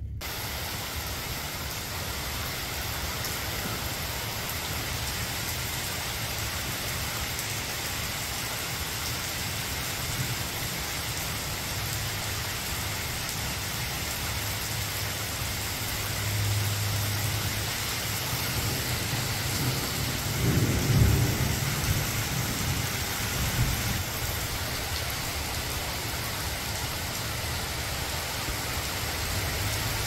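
Heavy rain pouring steadily onto a wet paved driveway and roadside greenery, an even dense hiss of downpour. A low rumble of thunder swells about twenty seconds in and is the loudest moment.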